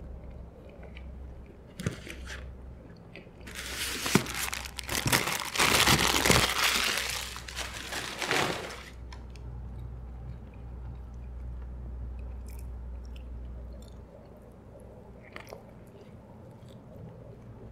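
A paper burger wrapper crinkles loudly for about five seconds, from about three and a half seconds in, as a McDonald's burger is unwrapped. Close-miked chewing and a bite into the soft bun come before and after it.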